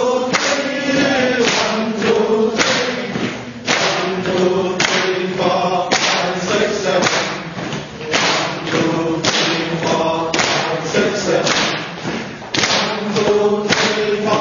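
Voices chanting in unison over steady rhythmic hand claps, a little under two a second, keeping time for the four-beat clapping exercise.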